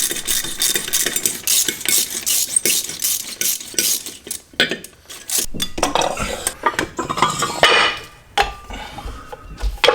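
Irregular metallic clinking and clattering, rapid knocks with a few short pauses, as metal parts are handled.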